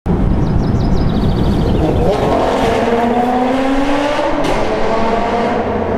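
A performance car engine revving hard under acceleration, its pitch climbing steadily through the second half.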